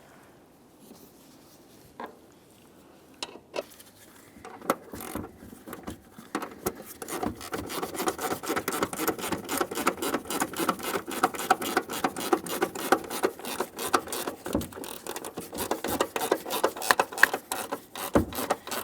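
Hand ratchet clicking quickly and steadily as a door hinge mounting bolt is run in. A few scattered clicks at first, then an unbroken run of clicks from about a third of the way in.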